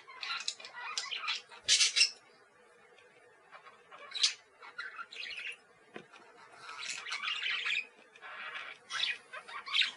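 Parakeets chattering and squawking in irregular bursts, loudest about two seconds in, then a lull of over a second before scattered calls and another run of chatter near the end.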